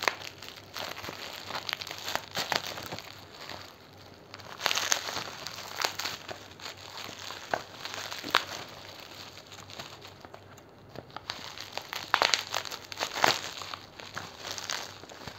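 Plastic bubble-wrap packaging crinkling and rustling as it is handled and unwrapped, with irregular sharp crackles that come in louder clusters now and then.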